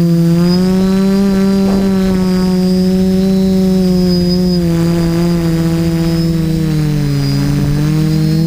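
Small quadcopter drone's electric motors and propellers whining steadily close to the microphone, the pitch sliding with throttle and dipping lower about seven seconds in.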